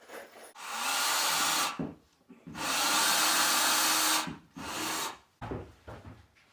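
Power drill running in two bursts of about a second and a half each, then a shorter third, driving screws to fasten a drywall ceiling panel.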